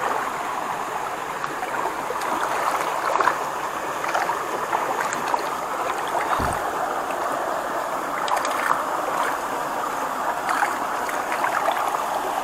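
Shallow muddy water sloshing and splashing steadily around a gillnet being hauled through it by hand, with small scattered splashes.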